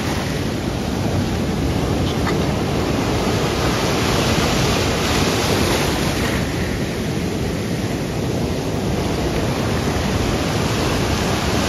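Ocean surf breaking and washing through shallow foam, a steady loud rush that swells about halfway through, with wind buffeting the microphone.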